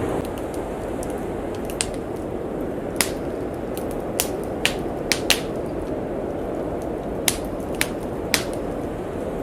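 Wood fire crackling in a fireplace, with about ten sharp, irregular pops, over the steady rushing noise of blizzard wind.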